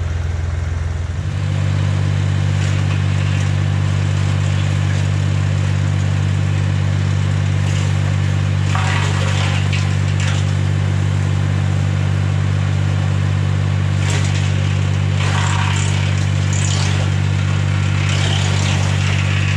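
Tractor engine running at a steady speed to drive a BX52 PTO-driven wood chipper; the engine picks up speed about a second in and then holds. Rougher noisy spells come a few times as brush is fed through and chipped.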